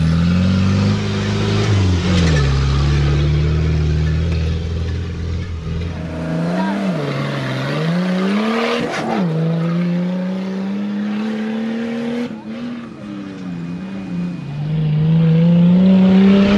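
Off-road competition 4x4 engines revving hard under acceleration, the pitch climbing and then dropping back several times as the drivers shift gears.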